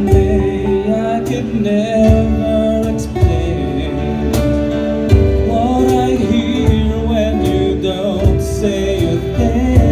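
A live band playing a song: a voice singing over strummed acoustic guitar, with a steady low beat.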